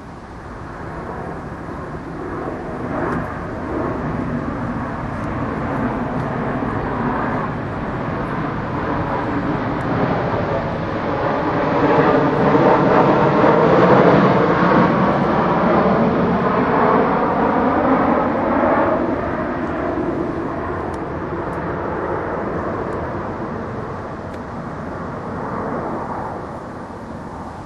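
Aircraft flying over: a broad rushing rumble that swells slowly to its loudest about halfway through, then fades away gradually.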